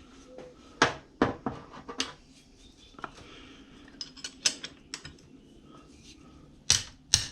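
Metal hand tools clinking and clattering as they are handled: a series of sharp, separate clinks, with the loudest ones close together near the end.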